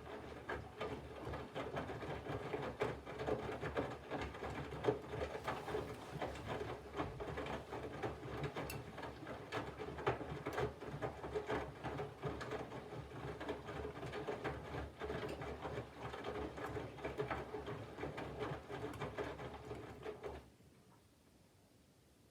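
Candy GVF4 front-loading washing machine in its main wash: the drum turning, with wet laundry and water tumbling and sloshing inside over a motor hum. It stops suddenly near the end as the drum pauses between turns.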